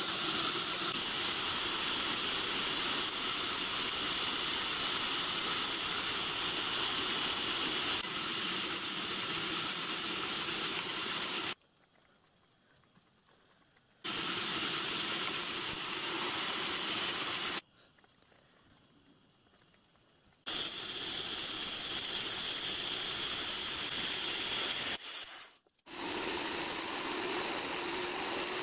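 Workshop machine tools running steadily while machining a bronze cylinder end cover: a pillar drill drilling small holes, and near the end a milling machine. The sound cuts off abruptly to near silence twice, for two to three seconds each, about 12 and 18 seconds in.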